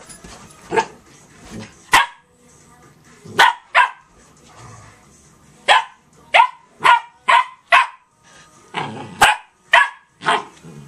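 Dog barking in play: about a dozen short, sharp barks, singly and in quick runs, the longest a run of five about six seconds in.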